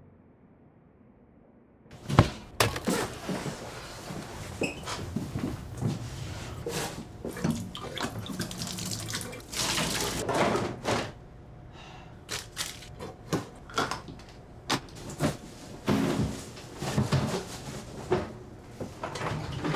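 Kitchen tap running into a stainless steel sink, filling a glass, among the knocks and clinks of dishes being handled at the counter. Quiet for the first couple of seconds, then a sharp knock; the water runs loudest about halfway through.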